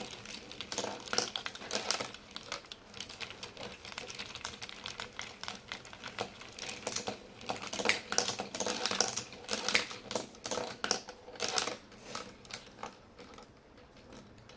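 Hand-cranked wooden marble run in motion: the crank turns the wooden gears that lift the marbles, and marbles roll and drop along the wooden track, giving a dense, uneven clatter of clicks and clacks. The clatter thins out near the end.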